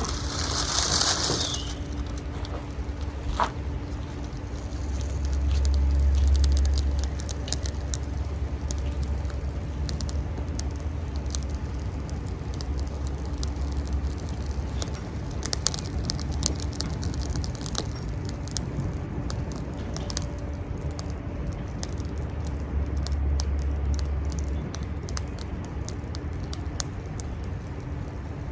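Small fire crackling, with scattered sharp pops throughout and a short hiss in the first second or so, over a low rumble that swells now and then.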